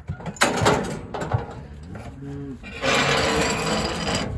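Clanks of a steel cattle squeeze chute, then a Brahman calf bawling from a little after two seconds in, loud and lasting over a second.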